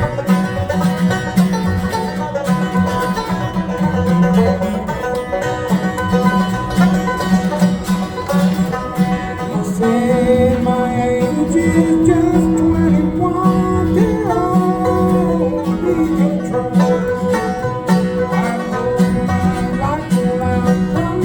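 Bluegrass music with banjo and guitar over a steady beat. About halfway through, a sliding melody line comes in.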